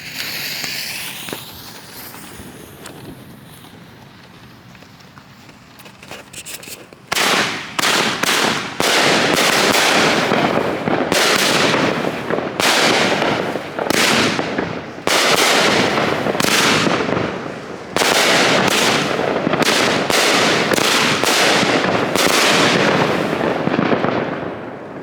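A Winda Lace Combustion 200 gram firework cake firing. After a quieter opening stretch, the shots begin about seven seconds in and come every half second to a second for some seventeen seconds, the noise staying loud between launches, then die away near the end.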